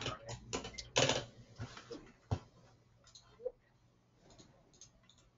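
Typing on a computer keyboard: a quick run of key clicks over the first two seconds or so, then only a few faint taps.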